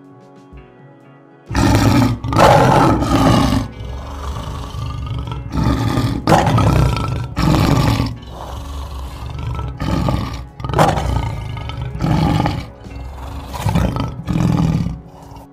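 Lion roaring: a long series of roars and grunts, one every second or so, beginning about a second and a half in, over soft background music.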